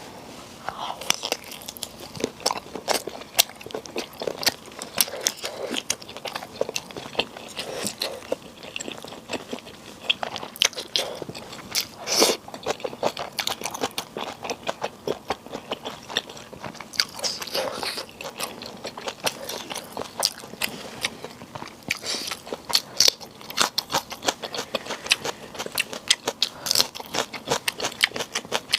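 Close-miked eating of sundae and spicy stir-fried noodles with kimchi: steady chewing broken by many sharp, crisp crunches and bites.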